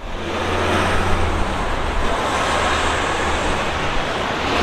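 Steady outdoor background noise with a low rumble, carried on the camera's microphone.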